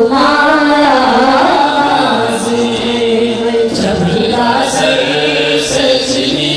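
Boys' voices chanting a noha, a Shia lament, in long held notes that slide between pitches, with no instruments.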